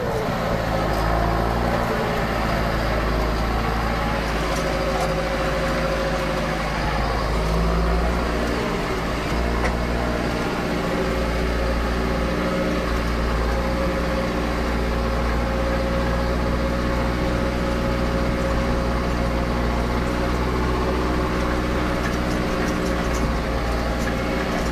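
John Deere 6330 Premium tractor's turbocharged engine running steadily under load while pulling a loaded grain trailer, with turbo whistle over the engine note.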